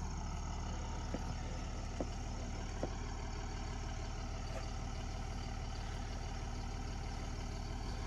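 An engine idling steadily, with a few faint clicks in the first three seconds.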